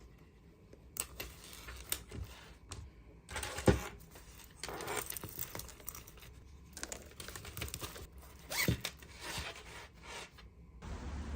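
Objects being handled close by: crinkling, tearing and scraping noises with a few sharp knocks.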